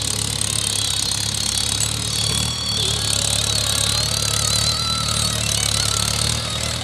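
Mahindra Yuvo 575 tractor's four-cylinder diesel engine running steadily as the tractor pulls a trailer, a low, rapidly pulsing rumble.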